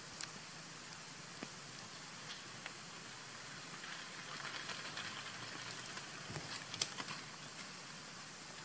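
Rainwater dripping and pattering after a shower: a steady soft hiss with scattered sharp drips, busier for a few seconds in the middle, with one sharper drip a little before the end.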